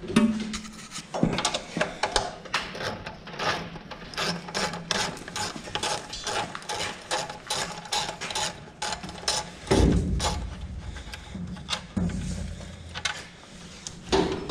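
Socket ratchet wrench clicking in quick strokes while loosening a truck battery terminal nut, with a heavier low thump about ten seconds in.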